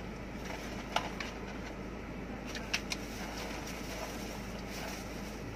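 Steady low hum inside a car cabin, with a few short clicks and light rustles from people eating out of paper bowls and food wrappers.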